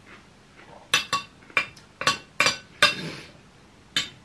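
Metal cutlery clinking and scraping on a plate: about half a dozen sharp clinks starting about a second in, with a short scrape in the middle and one last clink near the end.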